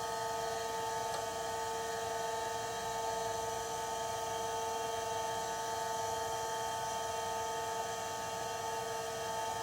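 Bench grinder running steadily: an even motor hum with a few fixed tones over a faint hiss.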